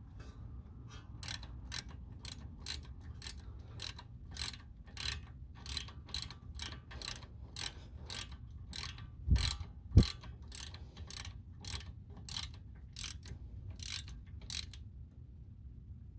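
Socket ratchet clicking steadily, about two clicks a second, as it tightens the top bolt of a front brake caliper. Two heavier knocks come near the middle, and the clicking stops shortly before the end.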